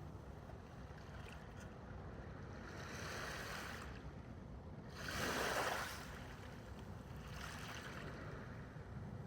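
Sea waves washing in slow swells, the loudest about halfway through, over a steady low wind rumble.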